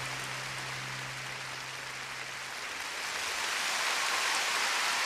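Large crowd in an ice arena applauding as the final low note of the program music fades out about halfway through; the applause swells toward the end.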